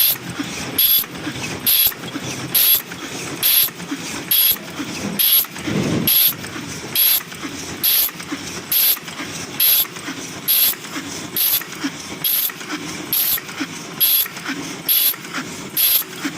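Paper cup forming machine running on test, cycling with a short sharp burst a little more than once a second over a steady mechanical clatter.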